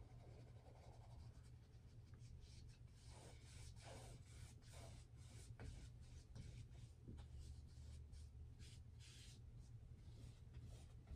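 Faint swishing strokes of a paintbrush on canvas, one after another from about two seconds in, over a steady low hum.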